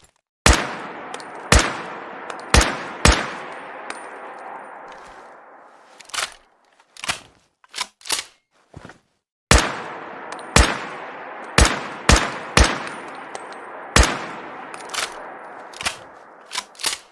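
Rifle sound effect: several loud gunshots, each with a long echoing tail, in two volleys, each volley followed by a quick run of sharp clicks and clacks.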